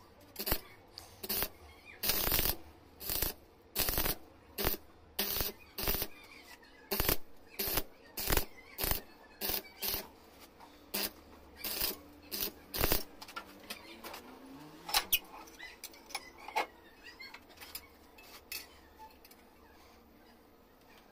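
Stick (arc) welding steel rebar in short stitch bursts: a run of brief crackling arc strikes, about two a second, thinning out after about 13 seconds and stopping near the end.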